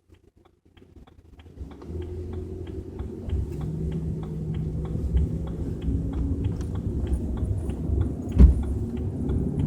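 Low rumbling drone inside a moving BMW 320i, with steady low hums, rising in from near silence after about a second and a half and growing louder. Faint ticks repeat about three times a second, and there is one sharp thump near the end. This is the unexplained low rumble the owner reports at 30–40 km/h.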